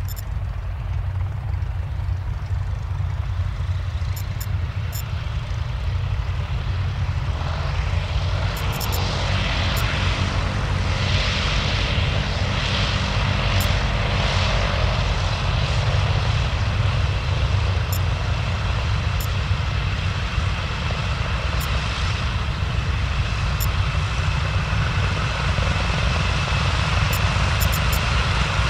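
Douglas DC-6's four Pratt & Whitney R-2800 radial piston engines running, propellers turning, as the airliner rolls along the runway. The engine sound grows louder about a third of the way in.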